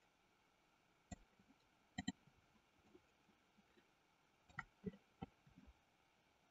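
Near silence with a few faint clicks from working the computer's mouse and keyboard: one about a second in, a quick pair about two seconds in, and three more close together near the end.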